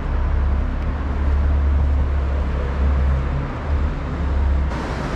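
Road traffic rumble: a loud, steady low engine drone over a broad hiss, changing abruptly a little before the end.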